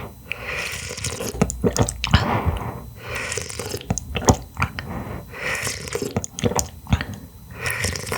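Close-miked wet chewing of clam meat, with many sharp mouth clicks and short squishy swells coming every second or so.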